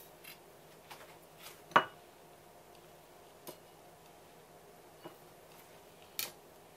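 A handful of light knocks and clicks from a sashimi knife against a wooden cutting board and a porcelain plate as slices of raw conger eel are cut and laid on the plate. The sharpest click, a little under two seconds in, rings briefly, and another comes near the end.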